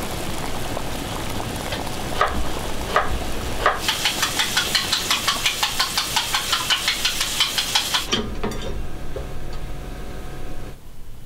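Chopsticks beating quickly against the inside of a bowl, about five clicks a second, over a steady sizzle of food frying. A few single clicks come first, and the beating stops about eight seconds in.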